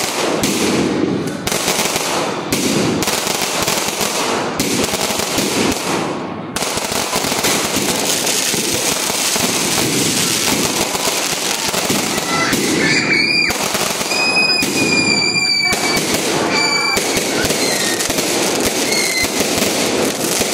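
Fireworks going off one after another: dense crackling with many sharp bangs in the first few seconds. Several short high whistles come through the middle.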